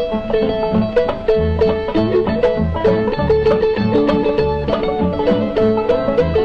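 Bluegrass string band playing an instrumental tune: quick plucked string notes over a steady, pulsing bass line.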